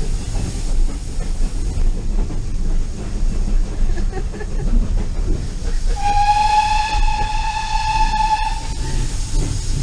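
Heritage train running, heard from inside a coach as a steady low rumble. About six seconds in, the steam locomotive's whistle sounds one long blast, rising slightly at its start and lasting nearly three seconds.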